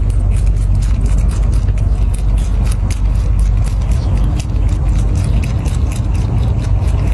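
Rabbit crunching napa cabbage leaf, a quick irregular patter of crisp chewing clicks, over a loud, steady low rumble.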